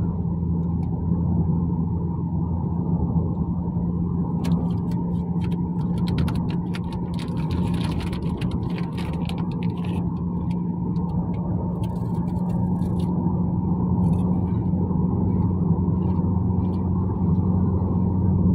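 Cabin noise of a vehicle on the move: a steady low drone of engine and road, with a patch of light clicks and crackles about halfway through.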